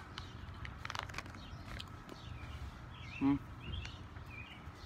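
Small birds chirping, with the crinkle of a plastic snack packet being torn open and the cookies shaken out into a hand. One short, loud pitched sound about three seconds in.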